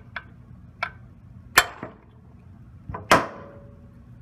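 Hammer striking a Snap-on 208EPIT hand impact driver set in a stripped carburetor screw: a couple of light taps, then two hard blows about a second and a half apart, the second leaving a short metallic ring. The blows drive the bit into the screw head and turn the screw loose.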